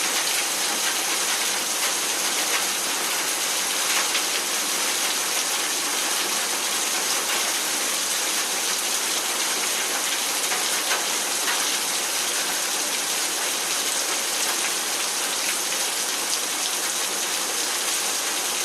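Steady downpour of rain mixed with hail: a dense, even hiss with a few faint ticks scattered through it.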